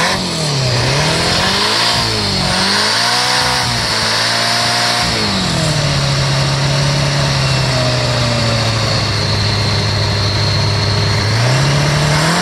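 Honda GL1100 Gold Wing's flat-four engine, fed by a single Solex 30 PICT-1 carburettor, revved by hand. The revs climb and fall twice, are held up for about two seconds, then drop back to a steady idle and begin to rise again near the end. The engine is running a little rich.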